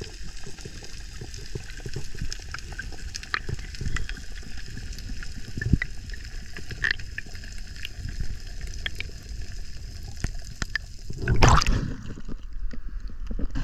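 Underwater sound over a coral reef: a steady low rush of water with scattered sharp clicks and crackles. Near the end comes a loud surge of splashing water, then water churning at the surface.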